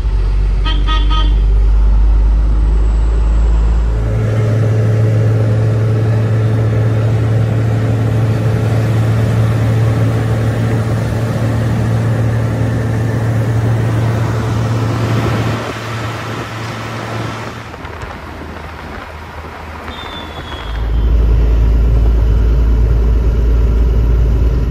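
Heavy truck's diesel engine and road noise heard from inside the cab while driving. The engine hum steps up in pitch about four seconds in, drops quieter for several seconds past the middle, then comes back strong near the end. A short horn toot sounds near the start.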